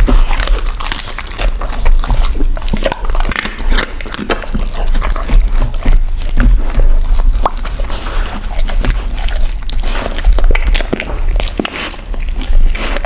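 Close-up of a dog chewing and crunching on a piece of cooked meat with skin: a run of irregular wet crunches and clicks from its teeth and jaws.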